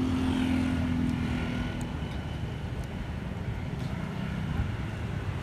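Motor scooters riding past on a street. One engine note is loud at first and fades away about two seconds in, and a lower engine hum passes a little later over steady traffic noise.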